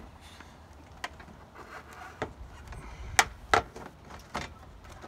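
A plastic bumper shell being pressed and worked into place over a pickup's rear steel bumper: five sharp plastic clicks and knocks, the loudest two close together a little past the middle.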